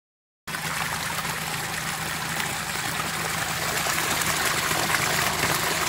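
Water splashing steadily as it spills over a rock lip in a small stream, starting suddenly about half a second in.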